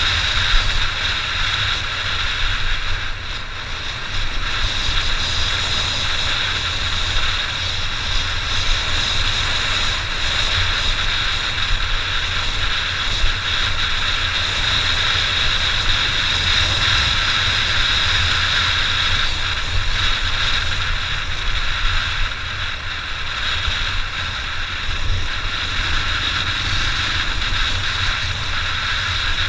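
Honda XR600 single-cylinder enduro motorcycle being ridden: a steady engine and wind rush with a low, buffeting rumble on the microphone.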